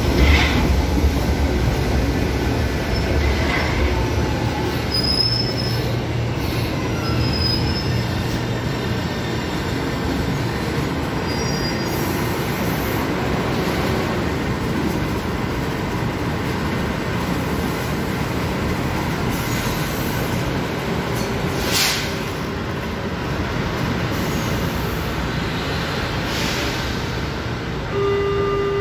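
São Paulo Metro Line 1 trains at a station platform: a train runs past with a low rumble, with short high wheel squeals a few seconds in, and then steady train and station noise. A sharp clack comes about 22 seconds in, and a steady tone starts near the end.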